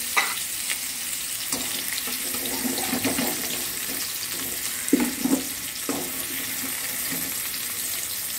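Potato, papaya and carrot chunks sizzling in a little hot oil in a wok, a steady hiss. A wire spider strainer knocks and scrapes against the wok a few times, clustered about five to six seconds in, as the pieces are scooped out.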